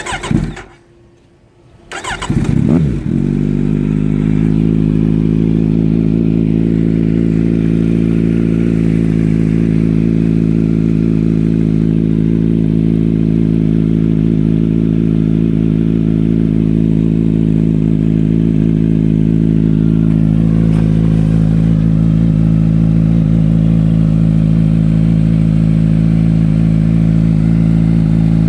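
Kawasaki Z900 inline-four cold-starting through an Akrapovic Shorty slip-on exhaust with the silencer and catalytic converter removed and replaced with straight stainless pipe. A brief burst comes right at the start, then a pause. The engine catches about two seconds in and settles into a steady, deep idle, its note shifting slightly about twenty seconds in.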